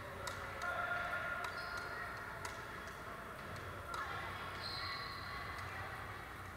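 Echoing gymnasium ambience: scattered sharp clicks of pickleball paddles and balls, short squeaks of sneakers on the hardwood floor, and faint distant voices.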